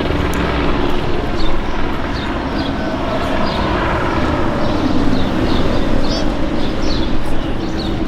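Steady vehicle rumble.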